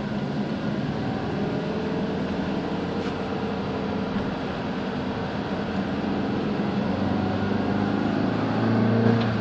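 Steady engine hum and road noise inside a moving car's cabin, in traffic with motor scooters passing close alongside. The hum grows a little louder near the end.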